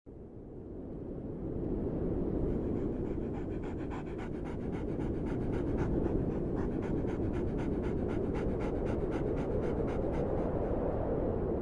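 Dog panting in quick, regular breaths.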